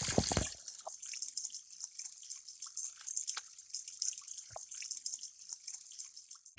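Water dripping: many small irregular drops over a steady high hiss, after a short thump at the very start.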